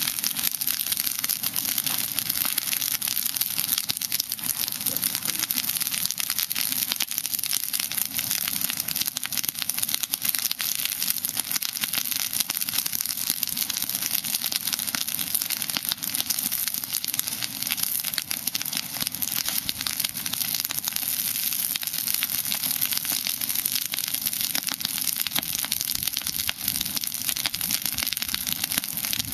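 Small brush fire of pine straw, leafy branches and sticks burning, with a dense, steady crackle of fast little snaps and pops.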